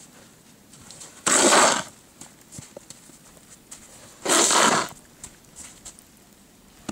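Plastic snow shovel blade scraping across a snow-covered sidewalk, pushing snow: two loud scrapes about three seconds apart, with faint knocks between.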